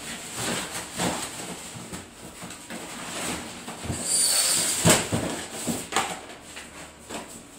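Packaging being handled: rustling and crinkling of wrapping paper or foam and cardboard, with scattered knocks. A dense crinkling stretch a little past halfway ends in a sharp knock, the loudest sound.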